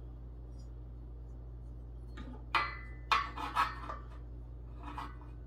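Sharp metallic clinks and knocks from the steel legs and frame of a desk being handled and shifted: a quick cluster of several strikes with brief ringing a couple of seconds in, then a couple of fainter ones near the end.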